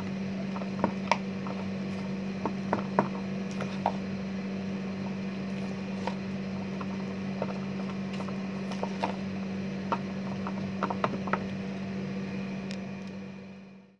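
Spoon stirring thick banana bread batter in a bowl: irregular light clicks and scrapes of the spoon against the bowl over a steady low hum. The sound fades out near the end.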